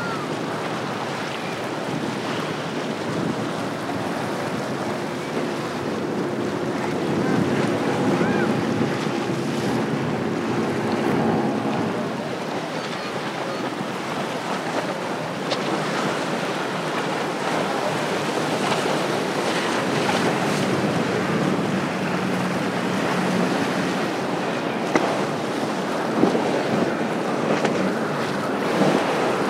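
Outboard-powered center console boats running at speed through choppy water: engines droning as they pass, hulls rushing through the wake, with surf and steady wind on the microphone throughout.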